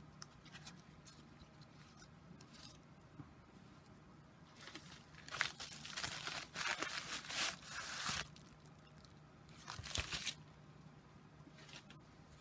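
Packaging being handled, rustling and crinkling in spells, the longest from about four and a half to eight seconds in and a short one near ten seconds. A faint steady low hum sits underneath.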